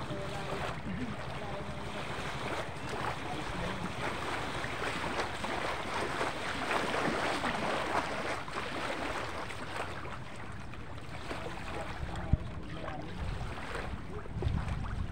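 Water sloshing and splashing with wind buffeting the microphone, and one sharp knock about twelve seconds in.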